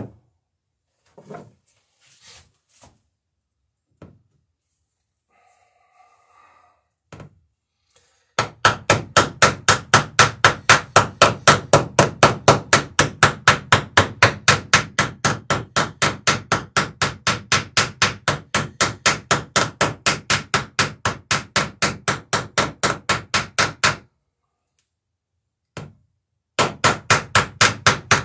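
Hammer riveting copper nails in a wooden dory's planking: a few light taps, then a long run of quick, evenly spaced blows at about four or five a second. The blows stop for a couple of seconds near the end, then start again.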